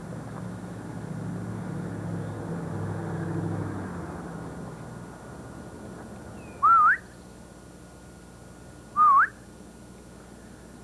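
Two short, loud whistles about two seconds apart, each dipping and then sweeping up in pitch. Before them a low engine-like hum swells and fades away over the first few seconds.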